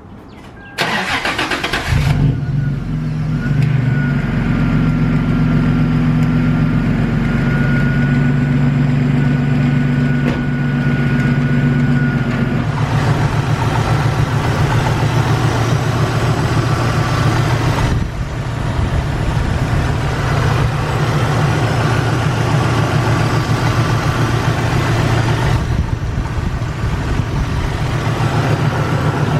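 Toyota Tacoma engine cranked by the starter for about a second, catching and running at a fast idle with a thin whine, then settling into a steady idle about twelve seconds in. Under the idle is a light ticking, slight knock, not as loud as it can get, that the owner traced to a worn idler pulley.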